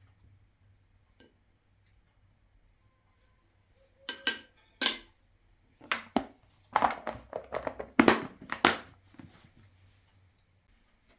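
Dishes and cutlery clinking and clattering: two sharp knocks about four seconds in, then a busier run of clinks and knocks that dies away near the end.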